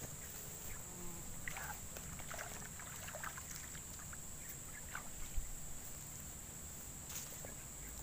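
Steady high-pitched drone of insects, with scattered light rustles and ticks and a single dull bump about five seconds in.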